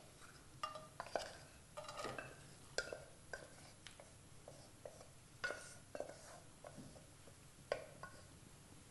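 Wooden spatula scraping and tapping against a cooking pot and a nonstick frying pan as boiled vegetables and dal are tipped from one into the other: faint, irregular taps and scrapes.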